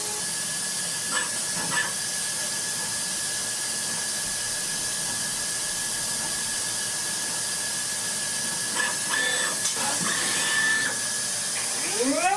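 A steady hiss with a thin, high, steady tone running through it and a few faint knocks; near the end a pitched whine starts rising.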